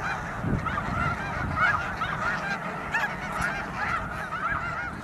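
A large flock of snow geese calling, with many short honks overlapping continuously.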